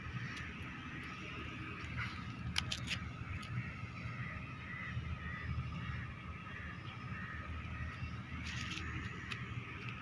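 Outdoor ambience with birds calling over and over, a low rumble of wind or handling on the microphone, and a few sharp clicks about three seconds in and again near the end.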